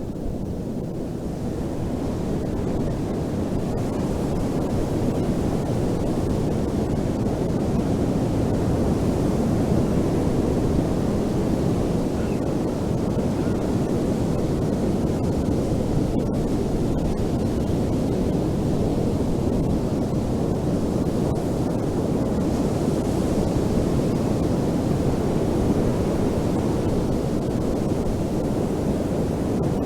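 Ocean surf washing continuously onto a beach, a dense steady noise that swells over the first few seconds.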